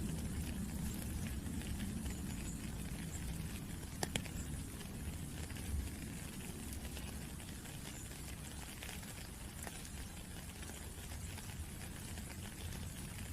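Steady rain falling: an even hiss over a low rumble, with a few sharper drop taps, the clearest about four seconds in.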